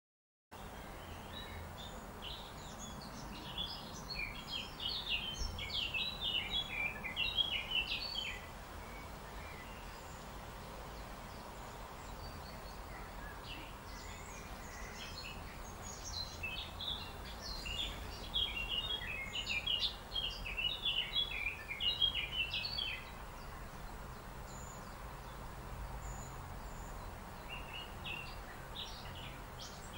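Small songbirds chirping and twittering in quick runs of short high notes, coming in three bouts with the middle one the longest, over a steady low background rumble.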